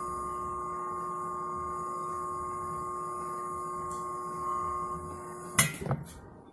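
Hat steamer running with a steady hiss and a humming ring while the felt brim is steamed. About five and a half seconds in the steam sound cuts off with a sharp knock, followed by brief handling noise as the hat goes down on the wooden table.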